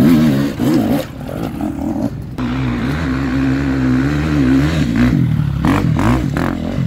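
Off-road dirt bike engine revving up and down as it climbs a steep hill, the pitch rising and falling with the throttle and holding steadier for a couple of seconds in the middle, with a brief break about two seconds in.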